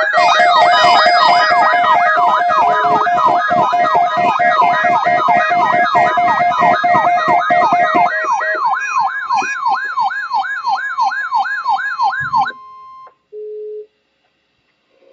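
Loud electronic siren wailing up and down about twice a second, layered with steady alarm tones. It cuts off suddenly about twelve seconds in, followed by two short beeps at different pitches.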